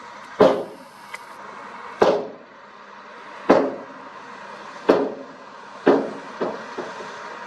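Heavy equipment at work: a steady engine running under a heavy knock about every second and a half, each with a short ringing decay. The knocks weaken near the end.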